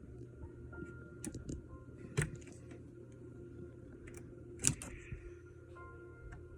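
Light, scattered clicks and taps of small parts being handled and worked on by hand, with two sharper clicks about two seconds in and near the middle, over a steady low hum.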